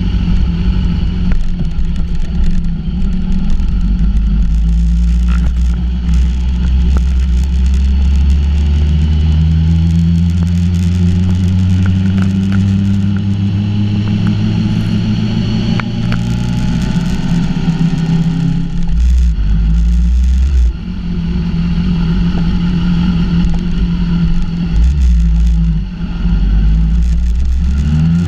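2014 BMW S1000RR's inline-four engine running as the bike is ridden at low speed in traffic. The engine note climbs slowly through the middle, then holds steady, with two short drops in level near the end.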